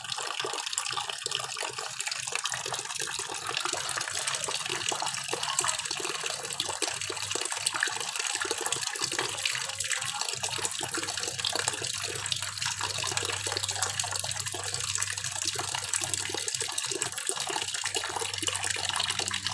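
A thin stream of tap water splashing steadily into a shallow red plastic tray of water.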